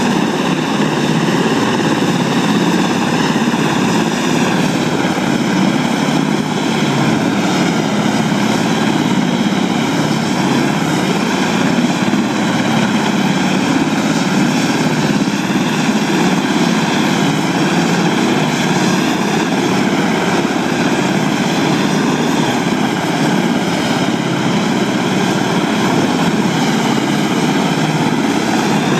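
Several Black Hawk helicopters running on the ground together: a steady, loud rush of rotor and turbine noise, with a layered engine whine that wavers slightly in pitch.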